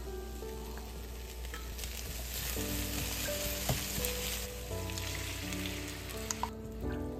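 Cabbage, green beans, ground pork and scrambled egg sizzling in a nonstick frying pan as they are stirred with a spatula. The sizzle is strongest in the middle and drops away near the end. Soft background music plays underneath.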